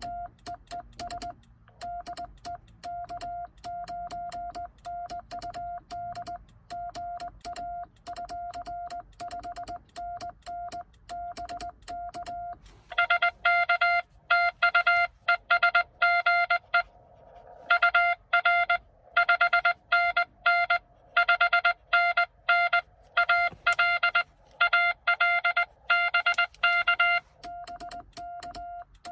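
Morse code tones from a Xiegu X6100 transceiver. First comes the sidetone of the operator's own sending on a home-made cootie sideswiper key, with the key's contacts clicking faintly. About 13 seconds in, a louder, buzzier stream of Morse from another station is received over the radio, and his own keyed sending resumes near the end.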